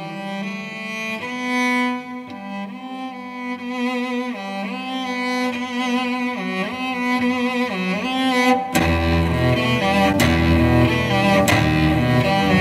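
Cello playing a slow melody with sliding notes. About nine seconds in, the music turns louder and fuller, with a deep bass and sharp hits joining.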